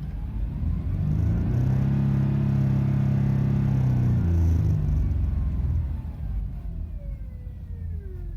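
2010 Jeep Liberty under throttle: a whining tone climbs in pitch as the revs rise and a loud low engine drone swells, then the whine glides back down near the end as the revs fall. This whine is the strange noise the owner is pointing out.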